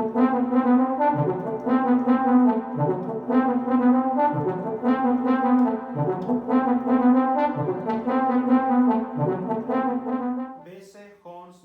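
Yamaha DX7 FM synthesizer playing a brass-like patch: held chords over a low note struck again about every second and a half. It fades out about ten seconds in, and a few quieter notes follow near the end.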